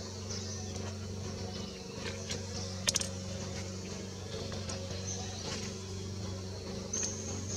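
A steady low hum throughout, with faint high chirps over it and one sharp click about three seconds in.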